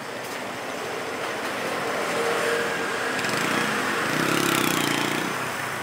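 Street traffic: a car drives past close by, its engine and tyre noise swelling to a peak about four seconds in and then fading.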